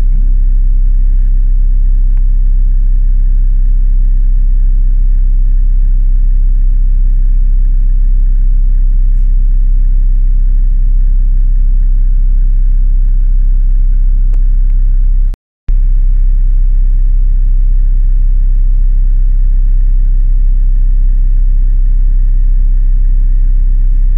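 Off-road 4x4's engine running steadily at low revs: a loud, deep, even drone with no change in pitch. The sound cuts out completely for a moment about fifteen seconds in.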